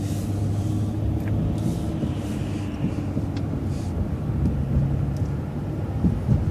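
City transit bus running through a left turn, heard from inside the cabin: a steady low engine hum with a held higher whine over road noise.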